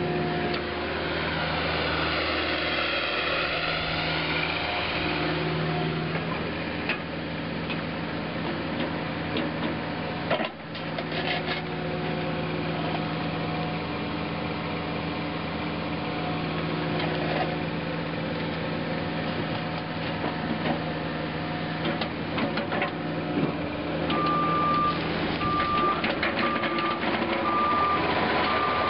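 A Cat 305.5E2 mini excavator's diesel engine runs steadily under hydraulic load as the boom and arm are worked. About 24 seconds in, a travel alarm starts beeping about once a second as the machine tracks.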